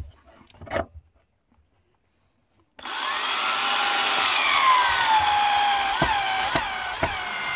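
Skil cordless drill driving a screw through a metal bracket into a wooden post. The motor starts about three seconds in and runs with a whine whose pitch sinks as the screw bites, with three sharp clicks near the end.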